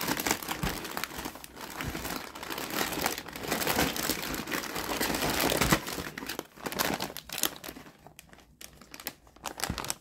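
Crinkly packaging being handled: dense crinkling and rustling that thins to scattered crackles in the last couple of seconds.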